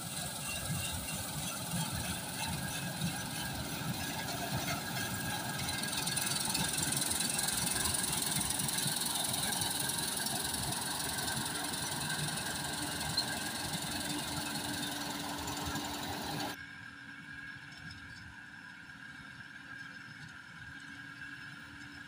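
New Holland 8070 combine harvester running close up as it cuts standing rice, a loud steady machine din with a low rumble. About 16 seconds in, the sound drops suddenly to the quieter hum of the same combine working at a distance.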